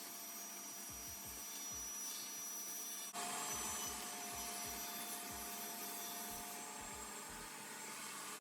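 Workshop machine motor running steadily, a whirring hiss with a faint high whine, shifting abruptly about three seconds in, with faint knocks of wood being handled.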